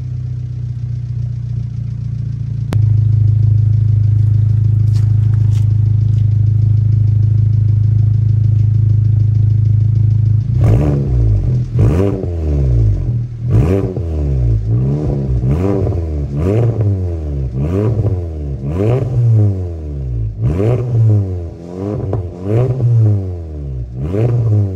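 Volkswagen MK7 GTI's 2.0-litre turbocharged four-cylinder idling shortly after a cold start, heard through a titanium cat-back exhaust and high-flow catted downpipe; the idle gets louder about three seconds in. From about ten seconds in the throttle is blipped about a dozen times, the revs rising and falling with a deep, mellow exhaust tone.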